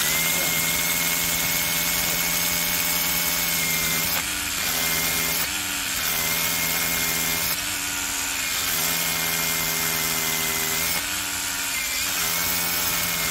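DCK KRH20V-26 20V brushless cordless SDS rotary hammer drilling into layered stone, a steady hammering drone with a high motor whine. It dips briefly in pitch several times as the bit bores a deep hole, almost the full length of the bit.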